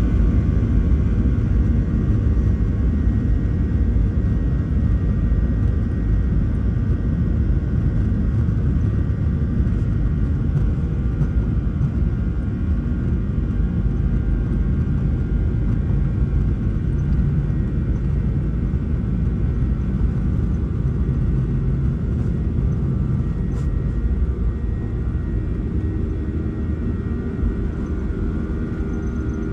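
Airliner cabin noise during takeoff and climb: a steady, loud rumble of the engines and airflow heard from inside the cabin, easing slightly near the end.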